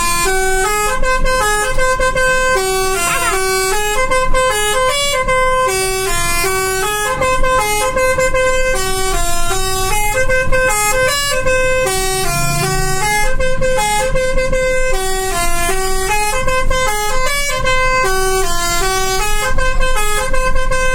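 Bus telolet horn, a set of air horns playing a tune: short notes stepping up and down in pitch, the same phrase coming round again and again.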